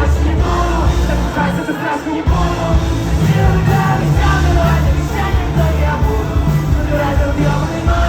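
Live rock music: a singer over loud bass, drums and guitars.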